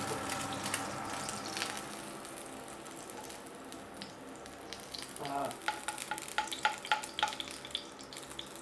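An egg frying in a pan, a steady sizzle that fades over the first few seconds. Then comes a run of light taps and scrapes of a metal spatula against the frying pan as the egg is lifted out.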